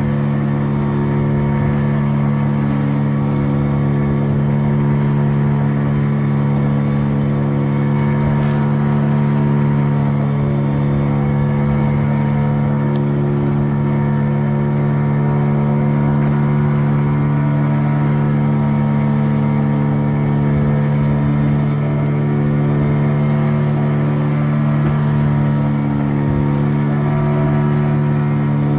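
Outboard motor of a wooden boat running steadily at cruising speed, its pitch unchanging, with water rushing along the hull.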